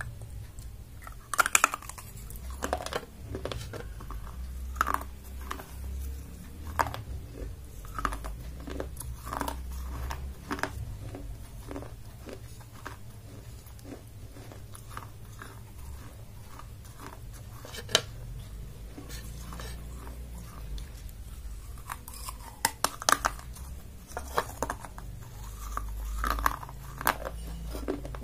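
Biting and chewing a baked clay cup: sharp cracks as pieces snap off, loudest about a second and a half in, again a little past the middle and in a cluster near the end, with gritty crunching in between.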